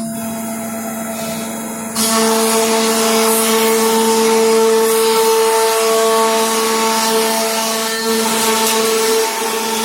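CNC router spindle running with a steady whine, then cutting into a wooden membrane-door panel from about two seconds in, with a sudden, loud, hissing cutting noise over the whine.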